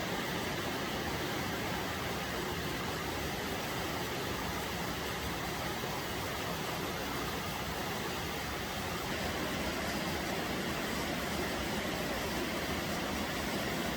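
Steady rushing noise of a car driving slowly along a road beside a rain-swollen river: tyre and road noise from inside the cabin blended with the river's rush.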